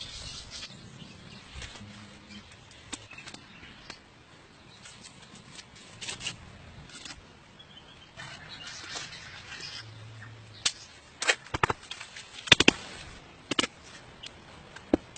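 Rustling and scraping, then a quick run of sharp clicks and knocks in the second half, the loudest of them close together.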